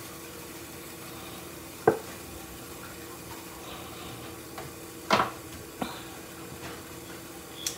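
A few separate light clicks and knocks of kitchen items being handled while pepper is shaken over a pot of boiled potatoes, the loudest about five seconds in, over a steady low hum.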